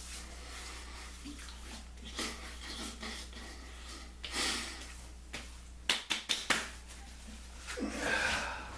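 Witch hazel being splashed and patted onto a freshly shaved face: soft wet splashes, a quick run of slaps about six seconds in, and a breath near the end.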